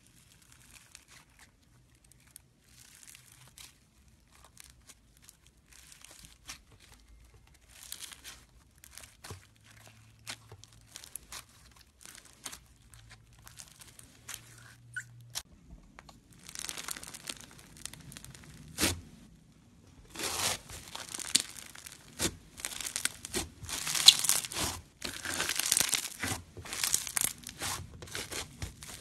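Foam slime (floam) being handled close up, making crackling, crunching pops. The pops are sparse and quiet at first, then grow denser and louder over the second half, with a few sharp clicks among them.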